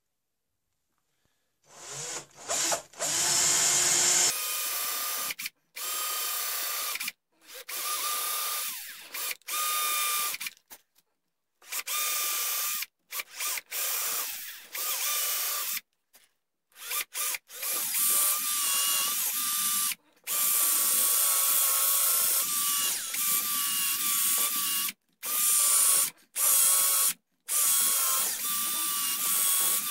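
Cordless drill boring into a wooden gunstock to drill out a notch, run in short bursts of one to a few seconds with the trigger released between them, with a steady whine.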